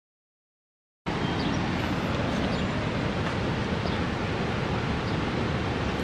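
Steady rushing roar of a large waterfall, cutting in abruptly about a second in after dead silence.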